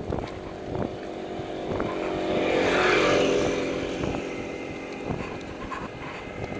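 A motor vehicle passing close by, its engine noise swelling to a peak about three seconds in and then fading. Scattered knocks and rattles from the bicycle riding along the path run underneath.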